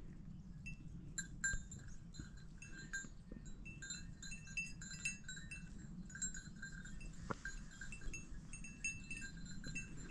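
Bells worn by a herd of goats clinking irregularly as the goats move about, over a low steady rumble.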